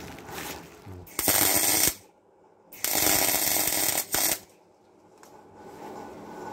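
Arc welding a steel plate into a Land Rover Series 2A chassis box section, in two bursts: a short one about a second in and a longer one of about a second and a half a little later.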